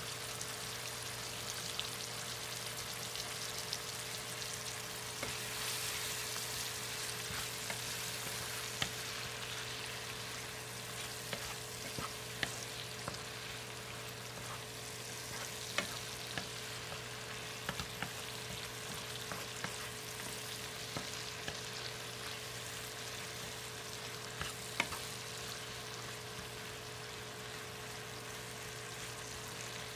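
Onions, peppers and tomatoes sizzling steadily in a nonstick frying pan while a wooden spatula stirs them, with sharp clicks now and then as it knocks the pan. A steady low hum runs underneath.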